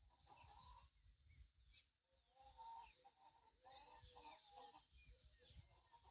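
Faint farmyard morning ambience: small birds chirping and trilling, with chickens clucking softly.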